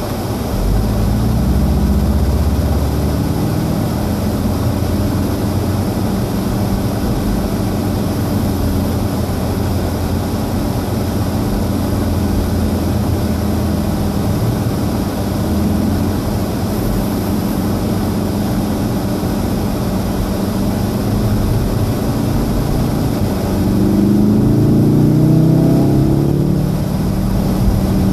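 Inside the cabin of a 2014 VW Golf VII R: its turbocharged 2.0-litre four-cylinder running at low speed over a steady hiss of rain and wet tyres. About 24 seconds in it revs up hard under acceleration, the engine note climbing steeply, then drops back near the end at an upshift.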